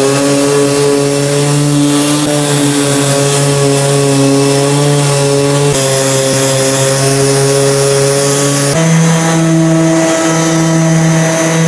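Electric sanders working a plywood table top: a motor running steadily with a whine over a sanding hiss, the pitch jumping abruptly about six and nine seconds in. The later part is a random orbital sander.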